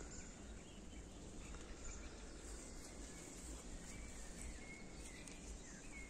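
Faint outdoor garden ambience: a steady high hiss with a few short, high bird chirps.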